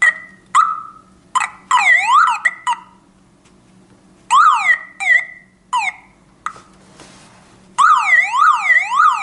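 Battery-backed car alarm siren sounding in broken-up spurts: short chirps and brief up-and-down wailing sweeps with pauses between, then a steadier fast rising-and-falling wail near the end.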